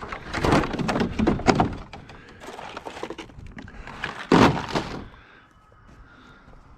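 A series of dull thunks and knocks in the first two seconds, then one louder thunk about four and a half seconds in.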